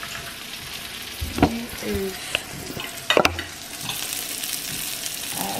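Sliced sausage pieces sizzling in a nonstick frying pan, a steady hiss that grows fuller near the end. Two sharp knocks sound, about a second and a half in and again about three seconds in.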